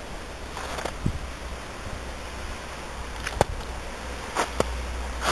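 Snow crunching and knocking in scattered short sounds, a few at first and more often near the end, over a steady low rumble.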